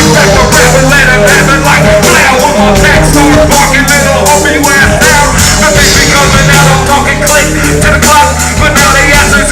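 A live band playing a rock-tinged hip hop backing: a steady drum beat and bass under pitched melodic lines.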